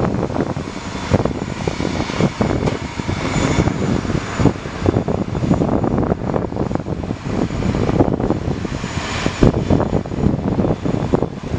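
ATR 42-600's Pratt & Whitney PW127 turboprop engine running during pushback: a steady high whine over a rough, fluctuating rumble.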